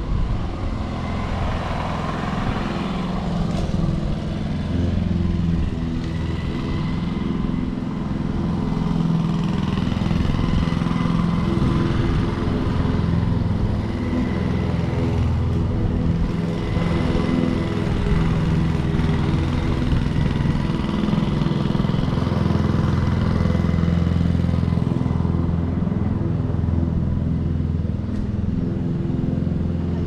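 A motor running steadily, a low hum whose pitch wavers slightly, with a faint thin whine above it.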